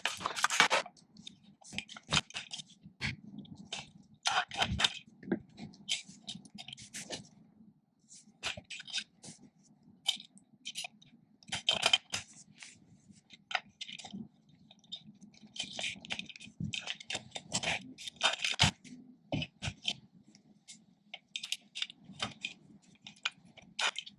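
Skate bearings, spacers and wheels being handled and pushed together on a hand bearing press: irregular clicks, clacks and short scrapes, over a faint steady hum.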